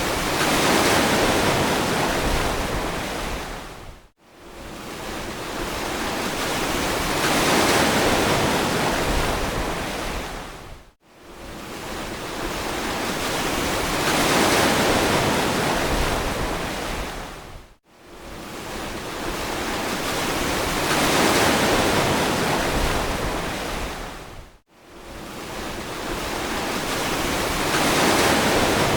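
Ocean surf: waves swell and wash in one after another, about every seven seconds. Between swells the sound cuts out abruptly for a split second four times.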